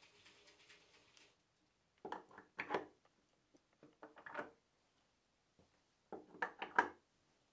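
Brass hex-topped pegs being set down and pushed into holes in a hardwood workbench top, heard as three short bursts of knocks and clatter. A faint hiss comes first, stopping about a second in.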